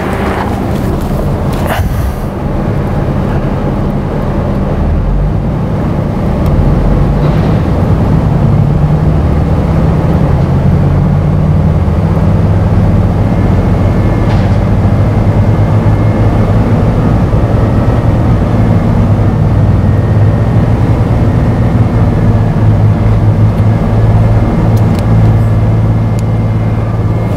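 2007 Ford Mustang engine revved up from idle a few seconds in and then held steadily at about 2,200 to 2,500 rpm. It runs without cutting out, now that a capacitor filter strips the false bump from the crankshaft sensor signal.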